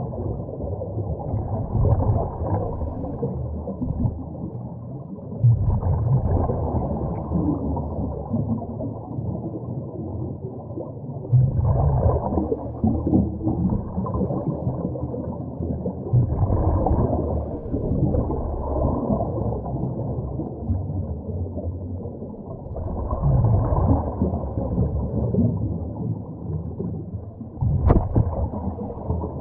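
Scuba divers' exhaled bubbles gurgling out of a regulator underwater, swelling in a burst every five or six seconds with each breath, dull and without any high tones. A single sharp click sounds near the end.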